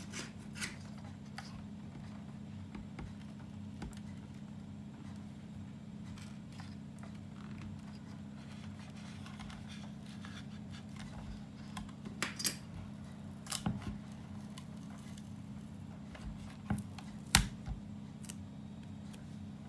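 Small sharp clicks and taps of plastic parts and small tools being handled as a compact electronics box is taken apart. There is a cluster of clicks a little past halfway and a louder single click near the end, over a steady low hum.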